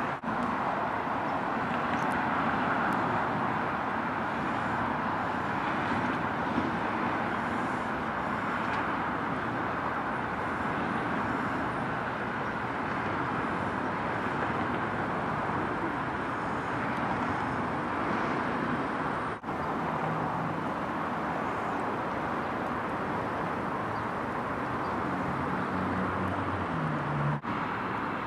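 Steady outdoor background hum of distant traffic, with two brief dips, one about two-thirds of the way through and one near the end.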